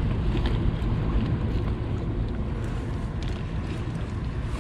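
Steady wind buffeting the microphone outdoors by the sea, with a few faint clicks.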